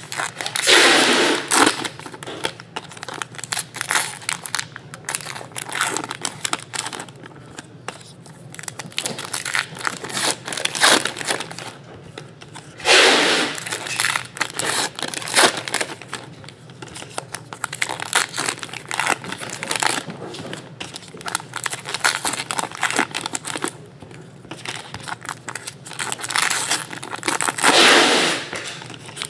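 Paper trading card packs (2017 Topps Star Wars Road to The Last Jedi) being torn open three times, about a second each, near the start, about 13 seconds in and near the end, with wrapper crinkling and cards being handled in between.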